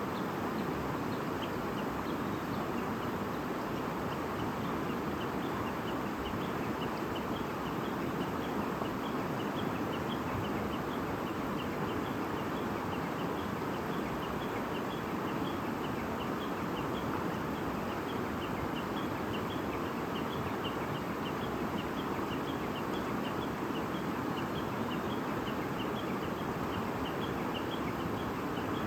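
A stream babbling steadily over stones, with short high bird chirps repeating about twice a second over it.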